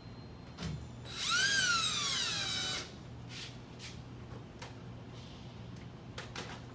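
Cordless Phillips power driver running a screw in for about a second and a half: a motor whine that climbs in pitch, then drops as it slows. A few light clicks follow.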